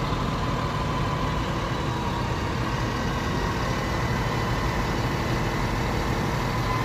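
Xtreme rough-terrain telehandler's diesel engine running steadily under load, with a thin steady whine over the low rumble.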